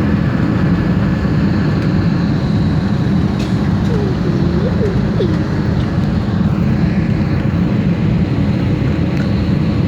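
Airliner cabin noise during landing: a steady, deep roar of engines and rushing air heard from inside the passenger cabin.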